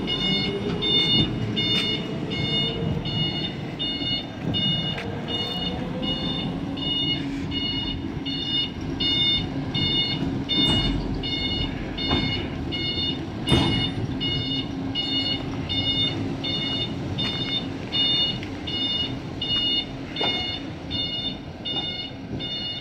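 Electronic warning beeper of a battery shunting locomotive sounding in a steady repeating pattern, about three beeps every two seconds, over a low machinery rumble. A faint rising whine runs through the first few seconds.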